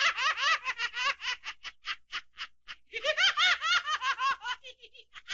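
High-pitched giggling laugh sound effect: two runs of rapid, evenly paced 'hee-hee' pulses, the second starting about three seconds in, each trailing off.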